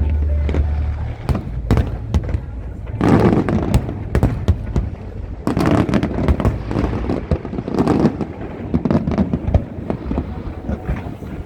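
Aerial fireworks display: a steady run of sharp bangs and crackles, thickening into dense volleys of bursts about three, six and eight seconds in, with a deep low rumble in the first second.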